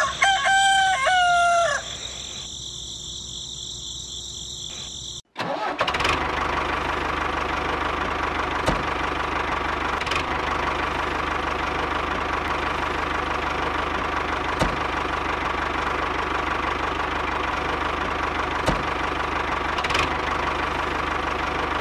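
A rooster crows once at the start. After a short break, a small motor runs with a steady whirring and a few faint clicks: the homemade toy tractor's little electric motor driving it along.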